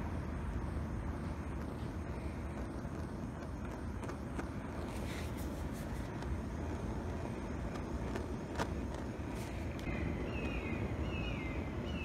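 Small handheld butane torch burning with a steady hiss, its flame shrinking heat-shrink tubing over a crimped copper battery-cable lug.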